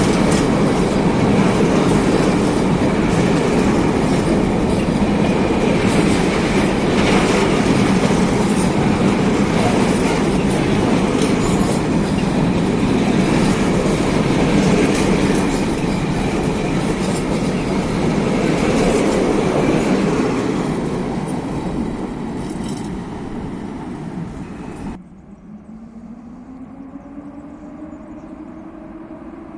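Long freight train of coal wagons rolling past at close range: steady wheel rumble and clickety-clack that starts to fade after about twenty seconds. The sound then cuts off abruptly, leaving a much quieter background with a faint, slowly rising tone.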